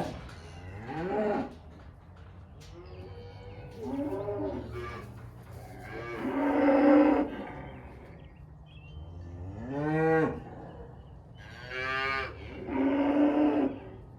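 Cattle mooing repeatedly, about seven long calls from more than one animal, some rising in pitch, over a low steady hum.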